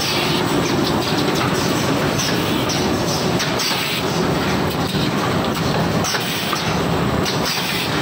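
Automatic rigid box making machine running: a steady mechanical clatter with frequent short hisses from its air-driven cylinders.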